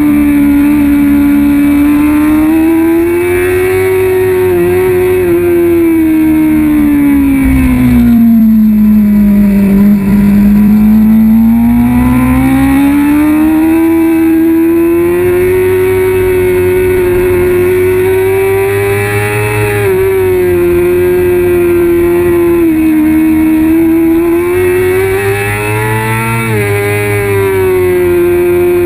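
Onboard sound of a Kawasaki ZX-6R 636's inline-four engine at racing revs, held high, then dropping steadily in pitch about eight to ten seconds in as the bike slows for a corner, then climbing back up under acceleration and staying high.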